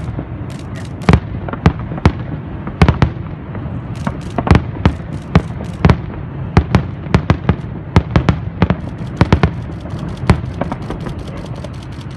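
Fireworks and firecrackers going off: a long irregular string of sharp bangs and cracks, at times several a second, packing closest together about two thirds of the way in, over a steady rumble.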